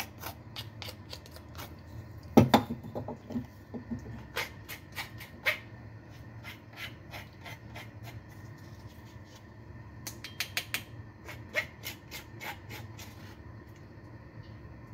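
A spoon scraping and tapping against a dish as chili is scooped onto it: a run of light clicks and scrapes, with one louder knock about two and a half seconds in, over a steady low hum.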